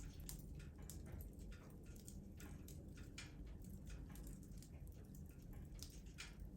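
Wood fire in a fireplace crackling softly, with frequent irregular small pops over a low steady rumble of the flames.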